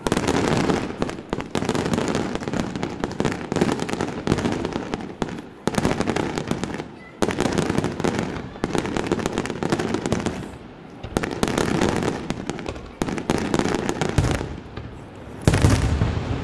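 Aerial fireworks shells bursting in a dense, rapid barrage of bangs that comes in waves with short lulls, with heavier, deeper booms near the end.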